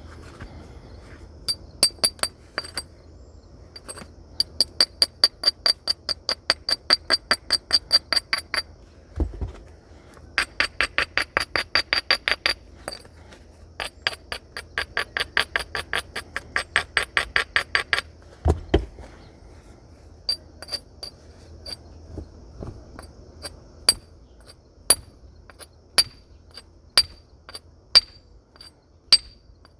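Flint being worked with a natural stone or antler tool: runs of quick, sharp stone-on-stone ticks at about four a second, then slower single taps about once a second in the last third, with two dull thumps in between.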